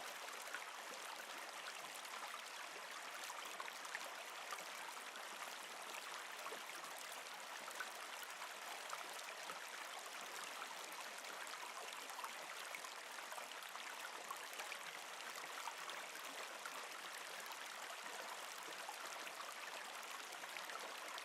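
Faint, steady sound of running water, an even rushing hiss with no breaks.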